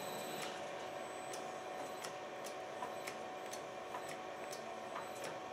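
South Bend lathe being jogged through its VFD: faint clicks about two a second as the spindle is nudged in short moves, over a faint steady whine. A high whine cuts off with a click about half a second in.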